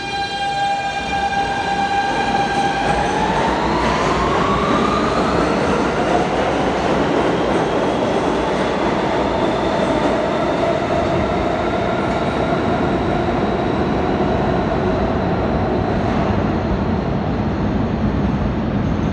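R160 subway train pulling out of the station, its propulsion motors whining in a steady tone that starts rising in pitch about three seconds in as the train accelerates. Wheel-on-rail rumble runs underneath throughout.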